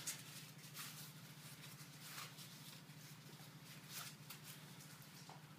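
Faint, soft rustles of a cloth nail-bending wrap being folded in the hands, a handful of brief rustles over a steady low hum of room tone.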